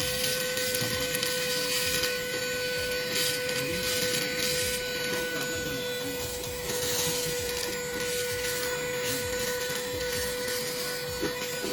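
Car vacuum cleaner running with a steady high whine, the rush of air rising and falling every second or two as it is worked over a surface.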